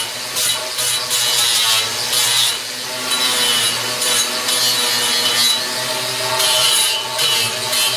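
Electric grinder running while it strips paint off a steel motorcycle frame tube: a steady motor whine with a harsh grinding hiss that surges each time the abrasive is pressed to the metal, about once a second.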